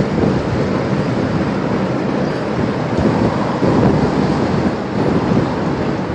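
Steady, loud rushing rumble of a violent EF5 tornado and its winds close by, with gusts buffeting the microphone.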